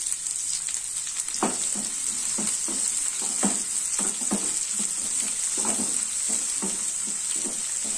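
Chopped onions sizzling in hot mustard oil in a non-stick kadai, with a steady high hiss. From about a second and a half in, a spatula stirs them, scraping against the pan in quick, irregular strokes.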